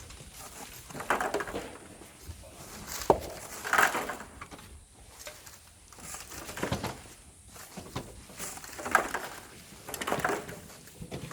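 Shovels scraping and scooping into volcanic sand and gravel, a rough scrape every one to two seconds, with one sharp knock about three seconds in.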